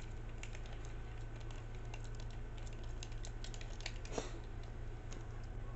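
Small, irregular clicks and ticks of a screwdriver turning a screw in a plastic Tamiya RC gearbox housing, with a sharper click about four seconds in, over a steady low hum.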